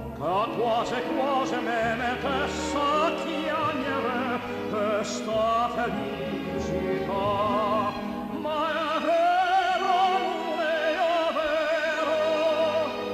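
Operatic singing with wide vibrato over instrumental accompaniment, playing as background music.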